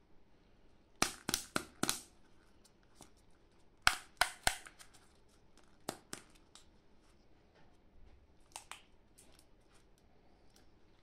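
Plastic shell and printed wrapper of a Double Fun candy egg crackling and crinkling as gloved fingers pick at it to open it. The sharp crinkles come in clusters: about four a second in, four more around four seconds, two near six seconds, and fainter ones later.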